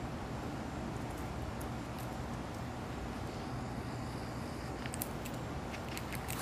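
Steady outdoor background hum and hiss, with a few faint sharp clicks starting about five seconds in.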